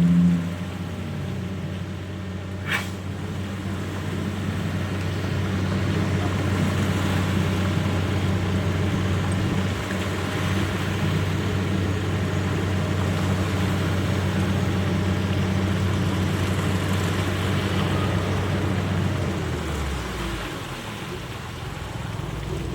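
A large engine running at a steady speed, a constant low hum with rumble, broken by one sharp tick about three seconds in; the low hum falls away near the end.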